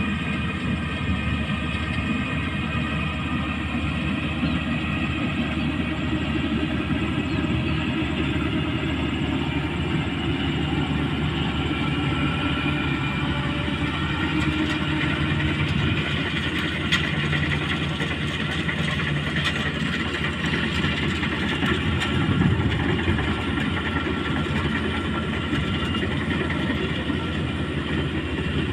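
Kubota DC 35 combine harvester running steadily: a continuous mechanical drone with several steady high whining tones over it.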